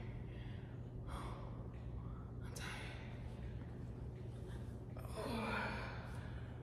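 A woman breathing hard from exertion while lifting dumbbells: heavy exhalations about a second, two and a half seconds and five seconds in. A steady low hum runs underneath.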